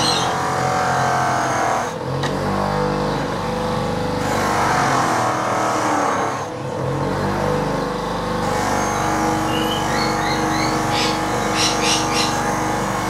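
Buffing machine running with a cotton buff wheel polishing stainless steel trim: a steady motor hum whose tone shifts as the trim is pressed against the wheel.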